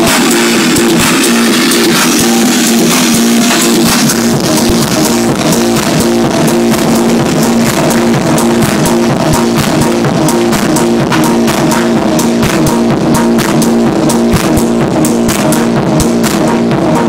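Minimal techno played loud over a club sound system, with a repeating synth line pulsing between two low notes and crisp percussion ticks that become busier about halfway through.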